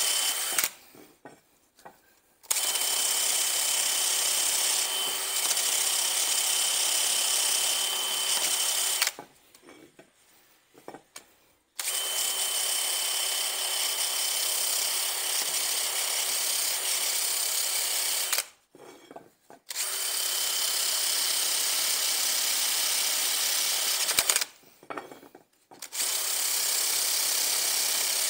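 Cordless drill spinning a wire wheel brush against the face of a van's rear wheel hub, cleaning it before a new brake disc is fitted. It runs in steady stretches of several seconds, about five of them, with short pauses in between.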